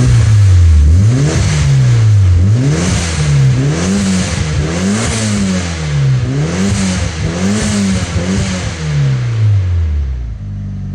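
Mitsubishi Lancer Evolution's turbocharged four-cylinder engine, fitted with a new aftermarket exhaust, revved in about eight quick blips of the throttle, the turbo audible at each peak. It drops back to idle near the end.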